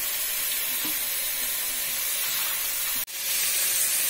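Kitchen tap running, a steady hiss of water, which breaks off briefly about three seconds in and starts again.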